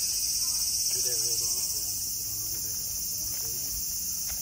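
A steady, high-pitched chorus of summer insects shrilling.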